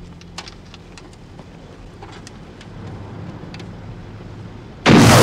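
A vehicle engine runs low and steady with a few light clicks, then near the end comes a sudden, very loud blast as an M202 FLASH four-tube rocket launcher fires.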